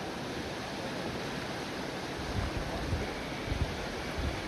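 Steady rush of whitewater river current, a constant hiss of moving water, with low wind buffeting on the microphone about halfway through.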